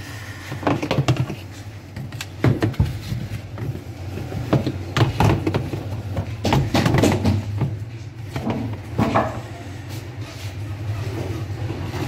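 Plastic parts of a semi-automatic washing machine being handled while its drain seal is fitted: irregular knocks, clicks and rubbing, over a steady low hum.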